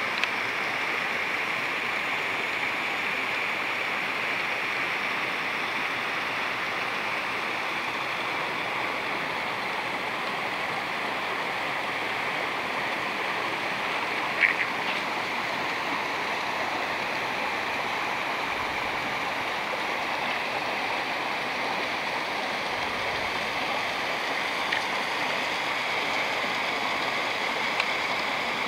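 Small woodland stream running steadily down a little cascade: an even rushing of water. A few short clicks sound over it, the loudest about halfway through.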